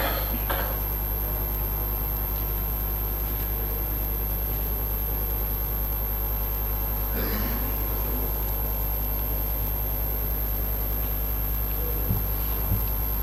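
Steady low hum with a thin high whine over it: the room tone of a legislative chamber's microphone feed. Faint voices come through about halfway, and a few soft knocks are heard near the end.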